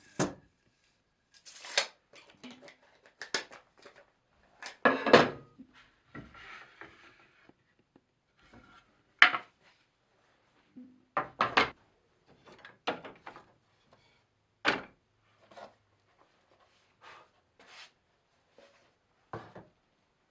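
Pieces of wood being handled and set down on a hard surface: about a dozen irregular sharp knocks and clatters, the loudest a longer clatter about five seconds in.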